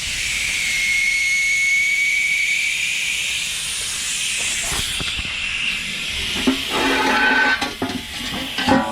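Air hissing out of a car tire through its open valve stem, the valve core unscrewed to deflate it before breaking the bead: a steady hiss with a thin whistle that eases off after about six seconds. Several sharp metal knocks with a ringing tone follow near the end.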